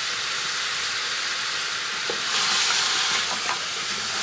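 Pork knuckle slices and pork cubes sizzling in hot oil in an aluminium pot, seared until the meat firms up, with a steady frying hiss. About two seconds in, stirring with a wooden spatula adds a few scrapes and knocks and the sizzle grows louder.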